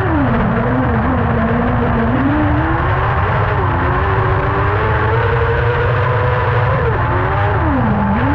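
Kart cross buggy's engine running hard on a dirt track, heard from on board: the revs drop at the start, hold low for about two seconds, climb and hold, then fall sharply near the end and pick up again as the driver lifts off and gets back on the throttle. A constant low rumble runs underneath.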